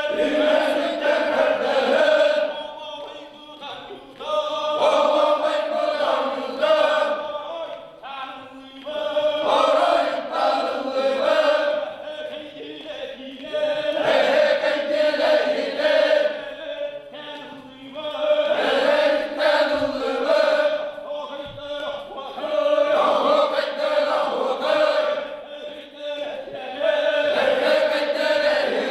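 Men's voices singing a Yakut osuokhai round-dance chant together, in repeated phrases of about four to five seconds with short breaks between them.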